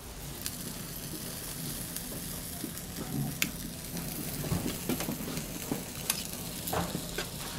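Bungeoppang batter sizzling in hot fish-shaped molds, a steady hiss with a few light metal clicks and knocks spread through it.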